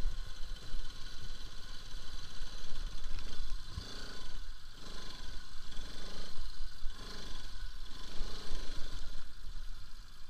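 Bajaj Pulsar RS200's single-cylinder engine running on a slow ride over a rough stone track, with wind rumbling on the microphone. In the middle, a run of about five short, wavering tones rises and falls.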